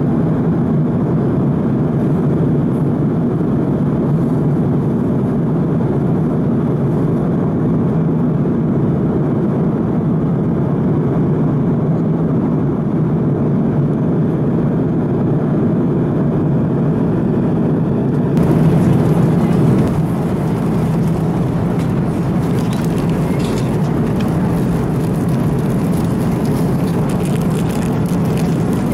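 Steady airliner cabin noise of an Airbus A330-200 in cruise, a deep, even rumble. About two-thirds of the way through, the sound changes suddenly: a brief louder swell, then more hiss and faint scattered clicks.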